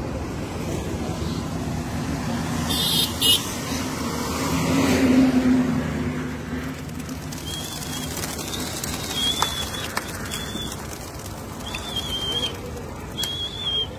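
A flock of racing pigeons released from wooden baskets, their wings clattering and rustling as they burst out and take off, over a steady outdoor background. Short high chirps repeat through the second half.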